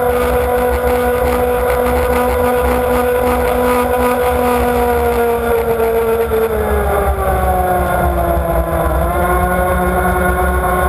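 Racing powerboat's engine running hard at a high, steady pitch, easing off and dropping in pitch about two-thirds of the way through, over the rush of water along the hull, heard from on board.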